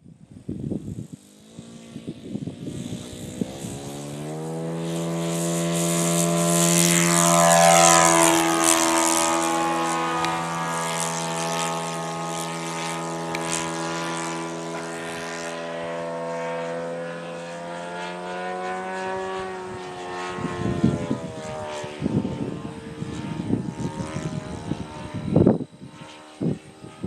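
Radio-controlled model Hawker Hurricane flying past, its engine and propeller a steady droning note that builds over the first few seconds, is loudest about eight seconds in as the pitch bends downward, then holds and fades out near twenty seconds. Irregular low thumps follow near the end.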